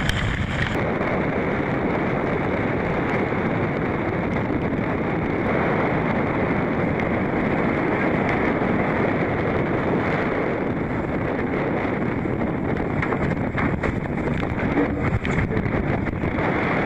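Strong wind buffeting the microphone over the rush of sea and spray as a Volvo Open 70 racing yacht sails hard through a rain squall. The noise is steady, with a few faint knocks about 15 seconds in.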